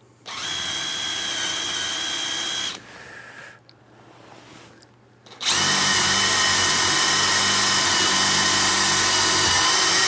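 Power drill boring a 1-inch hole through the edge of a cedar door into the 2-inch doorknob bore. It runs at a steady pitch for about two and a half seconds, stops, then runs again for about five seconds.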